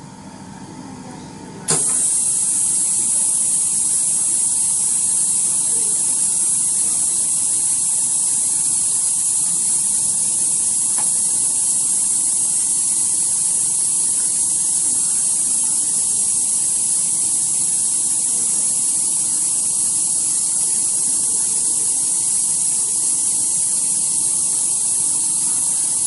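Steady loud hiss of compressed air from a flex cable bonding press, switching on abruptly about two seconds in and holding evenly.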